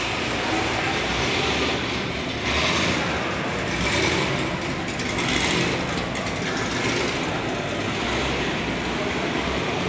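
Ambient noise of cars at a meet in a concrete parking garage: a steady mechanical rumble and hiss with a few swells.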